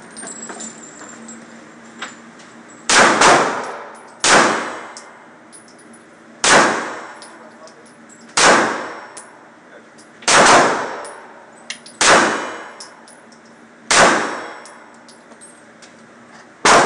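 Gunshots at a shooting range: about nine shots fired one at a time, the first two in quick succession about three seconds in, then single shots roughly every two seconds. Each shot has an echoing tail that dies away over about a second.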